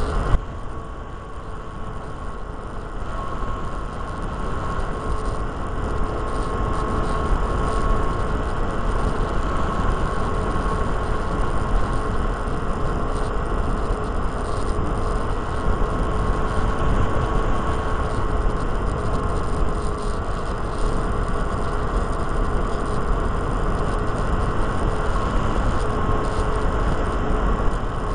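Electric motor and propeller of a small RC plane in flight, a steady whine heard from a camera on board, with wind rushing over the microphone. The motor dips in level about a second in and comes back up over the next few seconds.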